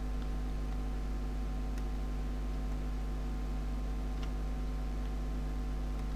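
Steady electrical hum and hiss from a recording microphone, with two faint computer-mouse clicks, about two and four seconds in.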